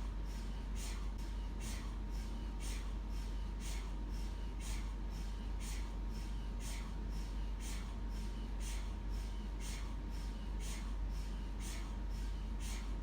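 MRI scanner running a scan sequence: its gradient coils knock in a regular rhythm, about two a second, over a steady low hum and a faint steady tone.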